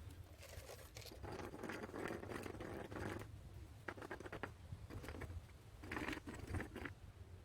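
Irregular rustling and scraping, with a quick run of sharp clicks about four seconds in, over a faint low hum.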